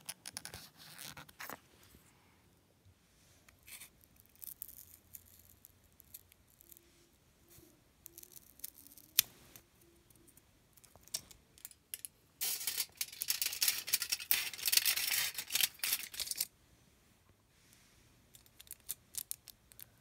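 Tabletop crafting sounds: a pencil scratching on cardboard as a quarter is traced, then scattered snips and taps from cutting out a cardboard disc. About halfway through comes roughly four seconds of loud, dense crackling rustle as the cardboard and aluminium foil are cut and handled, followed by a few light taps.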